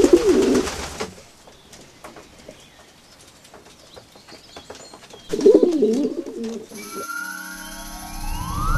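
Pigeons cooing in two bouts, one at the start and one about five seconds in. Near the end, music comes in with a rising glide.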